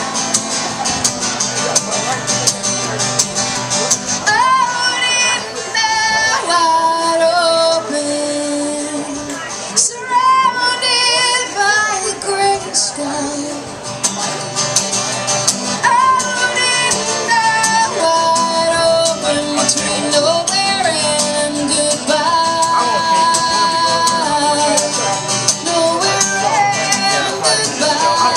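Live country-pop song on acoustic guitar in a wordless passage, with a held, wavering lead melody carrying the tune over the accompaniment.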